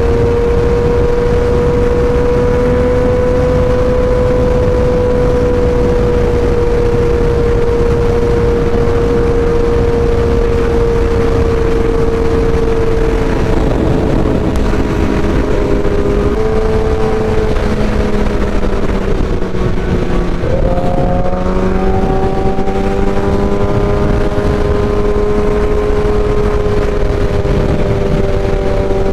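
Kawasaki ZX-10R inline-four engine at highway cruising speed, its note steady over heavy wind rush. Around the middle the note drops and steps down, then it briefly dips and picks back up a few seconds later.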